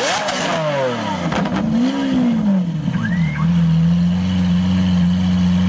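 Lamborghini Aventador V12 being revved. A rev peaks with sharp pops right at the start and falls away. A second, smaller rev follows, and from about three seconds in the engine settles into a steady idle.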